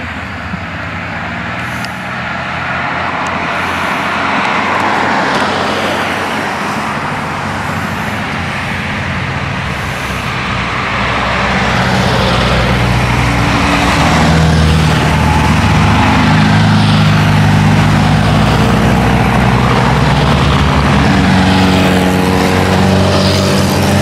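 Classic car engines revving as the cars slow for a climbing corner and accelerate out of it, the engine notes rising and falling. The sound gets louder about halfway through, with a steady engine note near the end.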